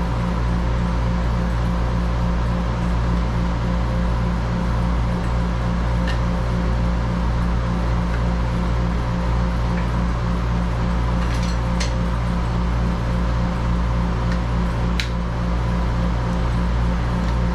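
Steady machine hum with a low drone that throbs several times a second, under a few faint clicks of cables and connectors being handled, about six, twelve and fifteen seconds in.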